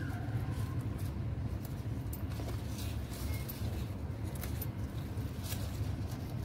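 Spinach leaves rustling and stems snapping faintly as they are picked by hand, scattered small clicks over a steady low rumble.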